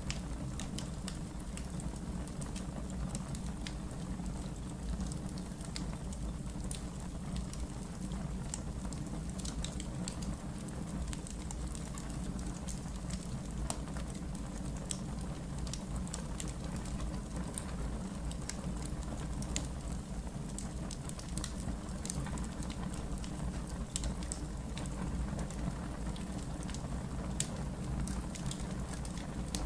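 Wood fire burning in a fireplace: a steady low rumble of flame with frequent small, sharp crackles and pops scattered throughout, one pop a little louder about two-thirds of the way through.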